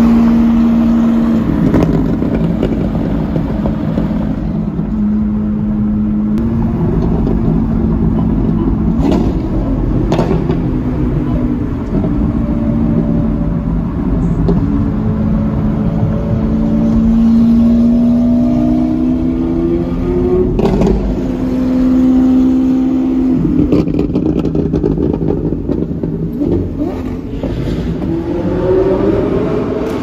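Lamborghini supercar engines, among them an Aventador SV's V12, revving and accelerating on a freeway, heard from inside a car: the engine notes climb and drop repeatedly through the gears, with a few sharp cracks along the way.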